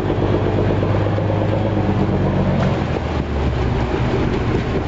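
Fishing boat's engine running steadily, its low tone dropping about three seconds in.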